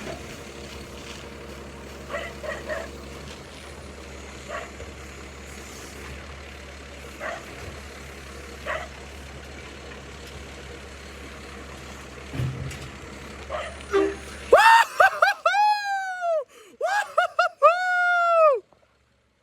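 Garbage truck's diesel engine running steadily. About fifteen seconds in, its horn honks in a string of short blasts and then a longer final blast, each note sliding up in pitch as it starts and down as it stops.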